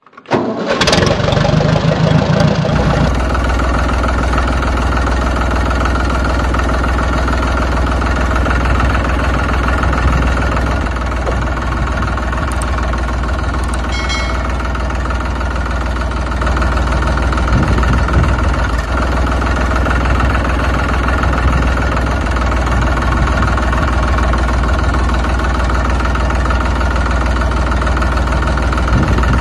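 Tractor engine running steadily with a deep low hum. About halfway through, a short ding from a subscribe-button animation.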